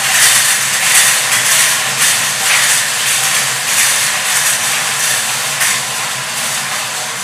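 Four hand-cranked wire-cage lottery drums spinning together, the numbered balls inside tumbling and clattering against the wire in a continuous dense rattle.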